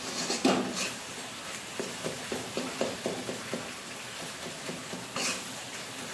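Flat metal spatula scraping and knocking against an iron kadhai as a thick khoya and sugar-syrup mixture is stirred and pressed. It comes as a run of short strokes, about four a second in the middle.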